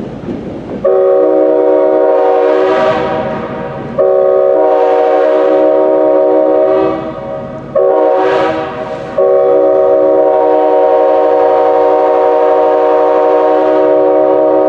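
Multi-chime railroad air horn blowing a loud several-note chord in the grade-crossing pattern: two long blasts, one short, then a long blast held on.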